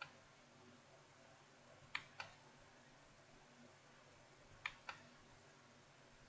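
Keys on an Aula F2088 mechanical keyboard with blue switches, clicking. A single click comes right at the start, then two press-and-release pairs of clicks about two and a half seconds apart.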